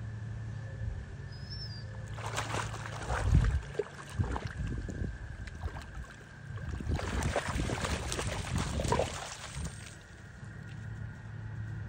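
German shorthaired pointer wading through shallow pond water, splashing in two spells of short strokes: the first starting about two seconds in, the second about halfway through.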